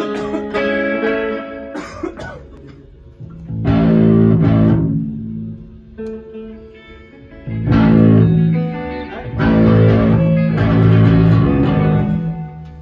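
Rock band playing live in a small rehearsal room: electric guitars over bass and a drum kit. Quieter held guitar chords alternate with loud full-band sections that come in about three and a half, seven and a half and nine seconds in.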